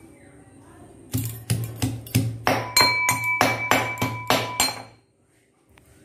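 Metal mortar and pestle pounding fresh mint leaves and ginger: about a dozen quick strikes, roughly three a second, each with a ringing metallic ping. The pounding starts about a second in and stops about a second before the end.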